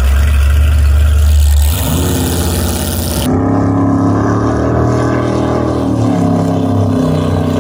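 A drag boat's big-block V8 running loud and low close by, then, after a cut about three seconds in, heard from across the water as a steady drone while the boat runs off at speed.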